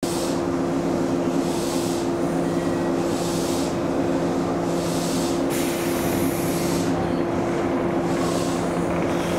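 Stationary JR West 113-series electric train idling at a platform: a steady hum of several pitches from its on-board auxiliary equipment, with a high hiss that swells and fades every second or two.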